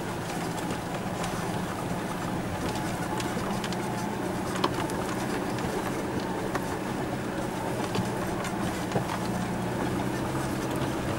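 Great Wall 4x4's engine running steadily at low speed, heard from inside the cab, with scattered knocks and rattles as it rolls over a bumpy dirt track.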